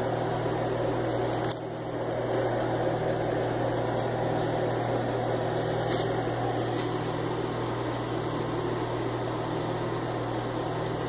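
Steady machine-like hum with a constant low drone and an even rushing noise, from something running in the kitchen by the stove; a light click about a second and a half in and another around six seconds.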